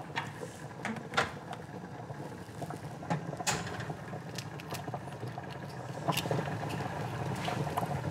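Eggs being cracked by hand over a pot of boiling soup: scattered sharp clicks and taps of eggshell, over the steady low noise of the boiling pot.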